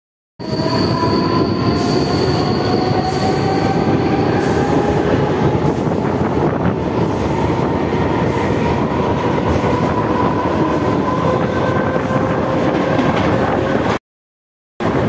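Mumbai suburban EMU local train running on a curve, heard from its open doorway: a steady rumble with a regular rail clatter and a long wheel squeal whose pitch slowly rises. The sound starts about half a second in and cuts off suddenly near the end.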